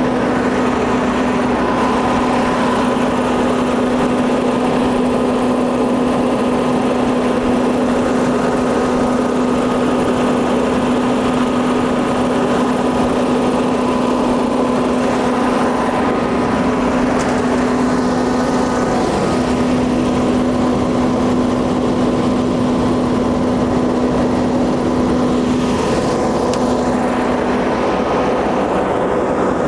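The school bus's Cummins ISC 8.3-litre turbo diesel idling with a steady hum; its low tone drops out briefly about two-thirds of the way through and fades out near the end.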